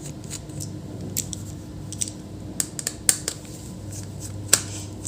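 Scattered small, sharp clicks and light scraping of hands and a small tool working on an open laptop's internals at the processor heatsink, over a low steady hum.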